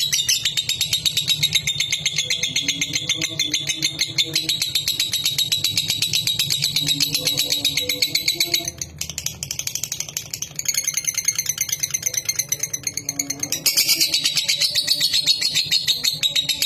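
Lovebird singing a long, rapid, high-pitched chattering trill, the continuous song that keepers call 'ngekek', breaking off briefly about nine seconds in and then going on.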